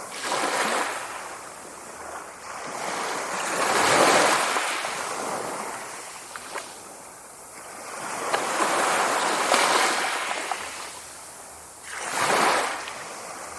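Sea waves breaking and washing ashore in repeated surges, each swelling to a rush and then receding, the loudest about four seconds in.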